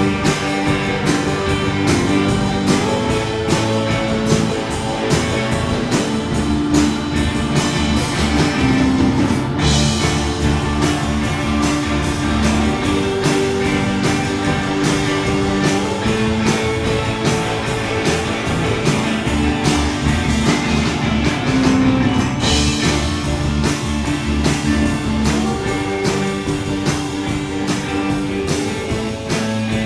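Live praise band playing an upbeat instrumental with a steady, driving beat and guitar.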